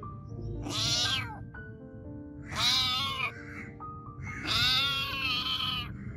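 A cat meowing three times, the last call the longest: a hungry stray cat begging for food.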